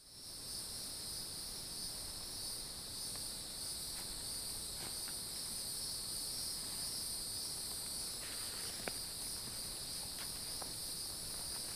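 Steady, high-pitched chorus of insects, several pitches layered and unbroken, with a few faint ticks.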